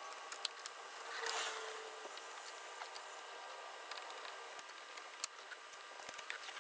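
Faint clicks, taps and rustling from hands working wiring and plastic trim under a car's dashboard, with a brief swell of rustling about a second in.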